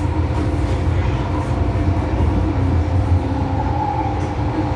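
Hong Kong MTR M-Train electric multiple unit running at speed, heard from inside the passenger car: a steady low rumble of wheels on track with a faint steady whine over it.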